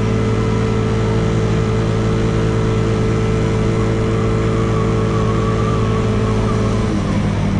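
Small 125cc single-cylinder motorcycle engine running under way at a steady speed. Its note drops near the end.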